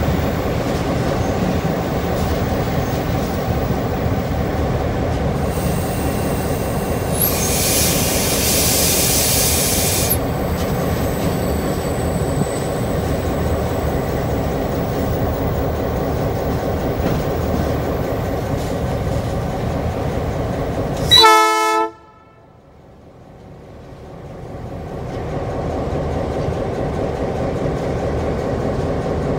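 EMD diesel-electric locomotive running steadily as it pulls away, heard from the cab side window. A few seconds of hiss come about a third of the way in. About two-thirds through comes one short, loud horn blast, after which the sound drops out sharply and fades back in over several seconds.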